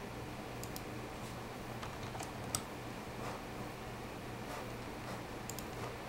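Scattered computer keyboard and mouse clicks, one sharper than the rest near the middle, as a new fan speed is entered. Under them runs the steady low hum of the ASUS HD6670 graphics card's 80mm cooling fan, set to about 50% and still fairly quiet.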